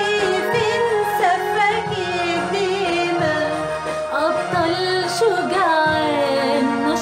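Music: an Arabic Coptic hymn, with female voices singing a wavering, ornamented melody over steady instrumental backing.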